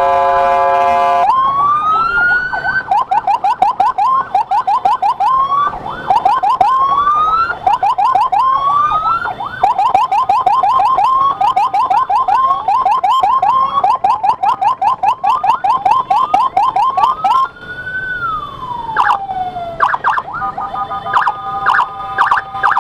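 Electronic emergency siren switching between modes. It opens with a steady horn-like tone for about a second, then gives a rising whoop and a long run of fast yelping sweeps. Near the end comes one slow rise and fall, then a rapid high-low alternation, clearing traffic for an ambulance escort.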